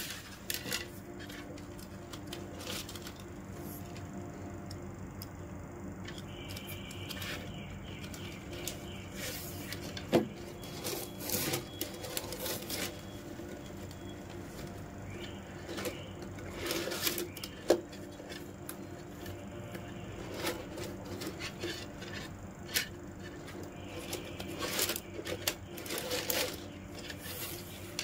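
Plastic PE rattan strands being woven by hand, rustling and clicking against each other in irregular light clicks and scrapes, over a faint steady hum.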